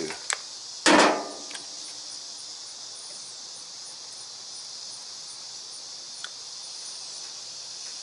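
A single sharp clank with a brief ring about a second in, as the hand-held cable cutters are set down on the steel toolbox, then a few faint handling clicks. Crickets hiss steadily in the background.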